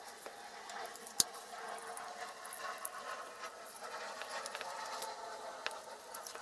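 A small screwdriver scraping and prying at crumbly potting compound in a cut-open electronic module, a steady fine scratching and crackling with a sharp click about a second in.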